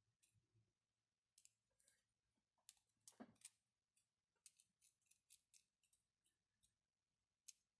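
Faint, irregular clicks and light clatter of 3D-printed plastic counter parts being handled and fitted together, with a short scraping rub about three seconds in.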